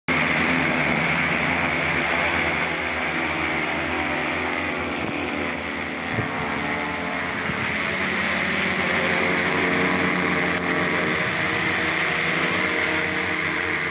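Large electric quadcopter's propellers and motors running with a loud, steady hum of several pitches as it lifts off and climbs.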